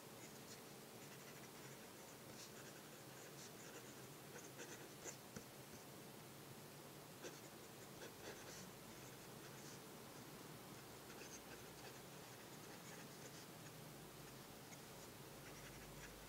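Faint scratching of a Parker Sonnet fountain pen's medium nib on notebook paper during cursive handwriting, in short irregular strokes.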